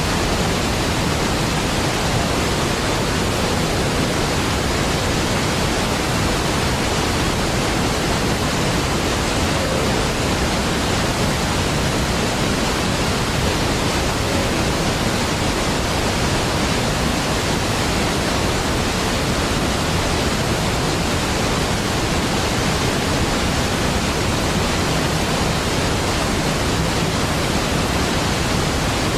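Large waterfall: a steady, even rush of falling water with no breaks or changes.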